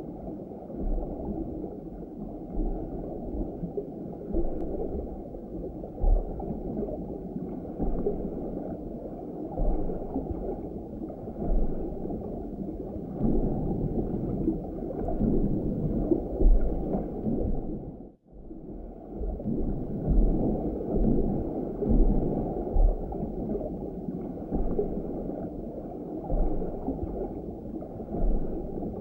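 Muffled underwater sound picked up by a GoPro inside its waterproof housing: a low, churning wash of moving water with dull low thumps now and then. It drops out briefly about 18 seconds in.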